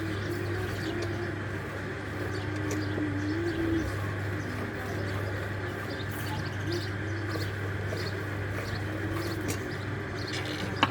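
Doves cooing repeatedly, over a steady low hum.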